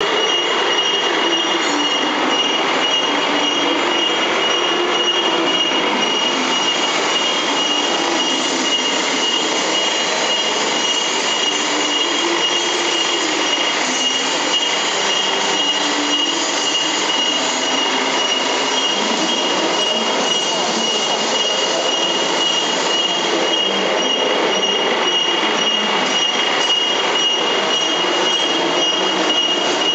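Factory machinery of a metal-ware washing and degreasing line running: a loud, steady mechanical din with a constant high-pitched whine over it.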